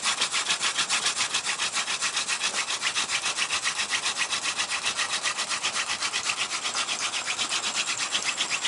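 Hand-drill friction: a yucca stalk spindle spun between the palms, grinding on a Ganoderma shell-fungus base in a fast, even rhythm of rasping strokes. The spindle is burning in a fresh socket, mating it to the unnotched base.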